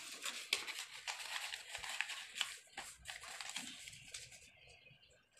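A sheet of paper rustling and crinkling as it is handled by hand, in quick irregular crackles that are busiest in the first three seconds and thin out towards the end.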